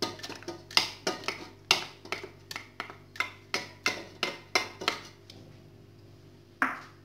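Wooden spoon knocking and scraping against a ceramic bowl tilted over a stainless steel pot, as grated tomato is scraped out: a rapid run of sharp clacks, about three a second for some five seconds, then one more near the end.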